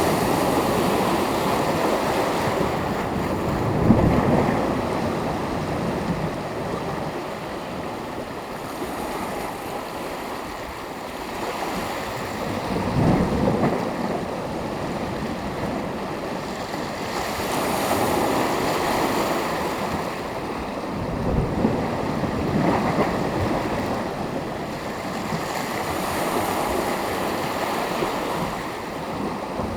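Mediterranean sea surf: small waves breaking and washing on the shore in an even rush, swelling about every four to five seconds with a low thump as each wave lands. Some wind buffets the microphone.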